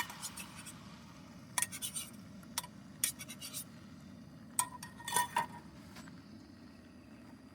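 Metal utensil clinking and scraping against a cooking pan and dishes: about a dozen sharp clinks in small clusters, a couple ringing briefly, over a faint steady low background.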